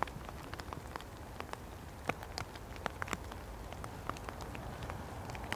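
Raindrops striking a hard surface close to the microphone, heard as irregular sharp ticks over a faint steady hiss of rain.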